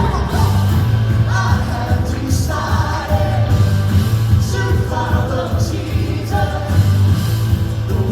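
Church worship band playing live, with singers carrying sustained sung phrases over bass notes and a steady drum beat.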